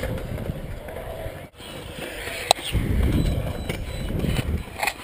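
Stunt scooter wheels rolling on the concrete of a skatepark bowl: a rumble that grows loud in the second half, with one sharp clack about halfway through.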